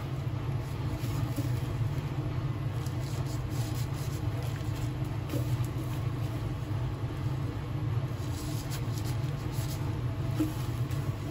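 Steady low mechanical rumble at an even level, with a few faint light rustles from handling around eight to ten seconds in.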